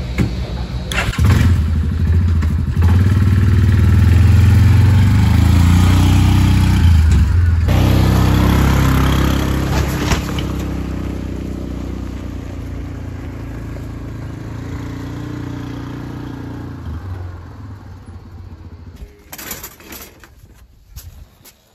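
Four-wheeler (ATV) engine pulling away and running steadily as it tows a loaded trailer, then dying away after about sixteen seconds. Near the end come a few light knocks.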